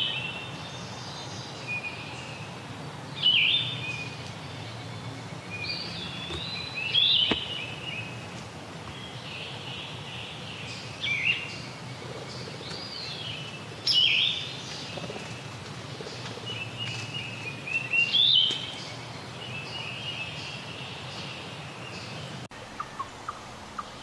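Yellow-throated vireo singing short, burry phrases with pauses of three to four seconds between them, slower than a red-eyed vireo. Fainter chirps from other birds sound between the phrases.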